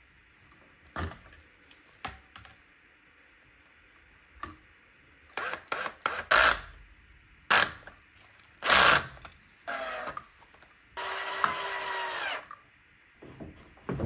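Cordless drill driving screws into an electrical box: a brief spin-up, then a steadier run of about a second and a half near the end. Before it, a string of short clicks, knocks and clatter from handling the box, wire and tools.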